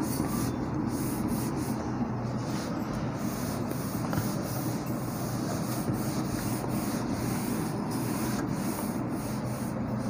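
A cloth rubbed back and forth over a whiteboard, wiping off marker writing: a steady rubbing swish, with a steady low hum underneath.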